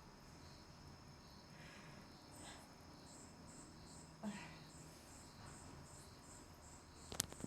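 Near silence with a faint, high-pitched chirping that repeats evenly about three times a second. A short soft sound comes about four seconds in, and a sharp click comes near the end.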